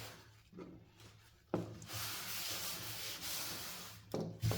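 Rubbing and wiping on a workbench top: after a short quiet spell a rough, even scrubbing hiss starts abruptly and runs for about two and a half seconds, followed by a sharp knock near the end.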